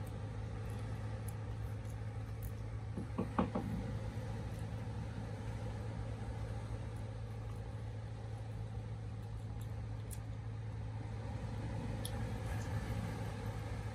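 Steady low hum of a running engine in the background, with a brief pitched voice-like sound about three seconds in and a few faint ticks.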